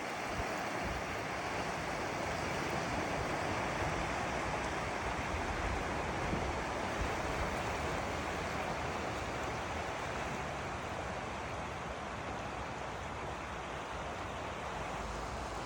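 Sea waves washing on a stony shore, a steady rush of surf, with low wind rumble on the microphone.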